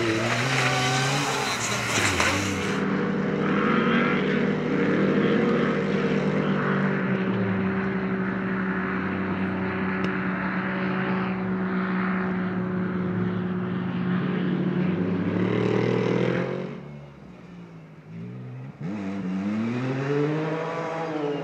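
Off-road racing engines at high revs in a run of short clips. First a side-by-side buggy's engine runs loud and rough, then one engine holds a nearly steady high note for about fourteen seconds. Near the end a buggy's engine revs up and back down.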